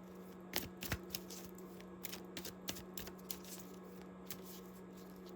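Tarot cards being shuffled by hand, a quick irregular patter of card clicks and slaps with two louder snaps about half a second and a second in.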